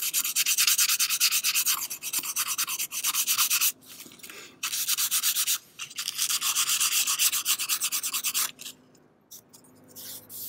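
Hand-sanding a straight razor's handle scales with a small scrap of sandpaper: quick back-and-forth scratchy strokes in three bouts with short pauses, stopping about eight and a half seconds in. It is a light sanding to take grime off the scales.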